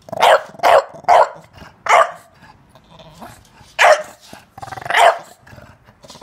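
English bulldog barking: four short barks in quick succession, then two more a couple of seconds later, the last one a little longer. These are demand barks at being kept off the couch.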